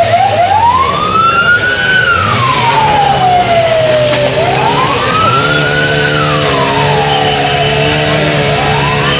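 Emergency vehicle siren wailing, rising and falling slowly over about four seconds per cycle, with a steady low hum beneath it.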